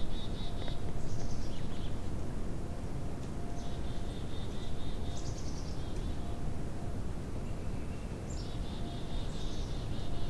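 A small songbird singing a short song over and over, each phrase a high downward slur running into a rapid trill, over a steady low rumble of outdoor background noise.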